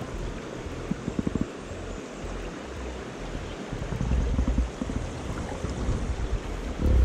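Rushing water of a fast, high-running trout stream close to the microphone, with low rumbling gusts of wind on the microphone, growing louder about four seconds in.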